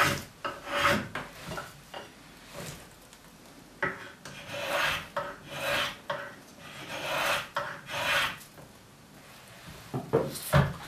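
Small hand tool shaving the end of a wooden footrest: a series of short scraping strokes with pauses between, some faint and one longer. A few sharp knocks come near the end.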